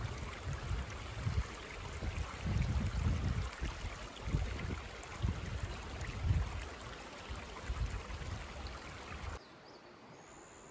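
Shallow river water running over stones, with irregular low rumbles throughout; the sound drops suddenly to a quieter, even flow near the end.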